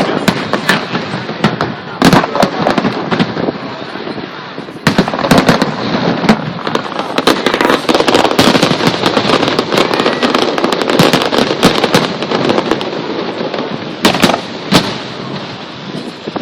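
Fireworks display going off: a dense, continuous crackle of rapid pops with heavier bangs mixed in, thickening about five seconds in and with two loud bangs near the end.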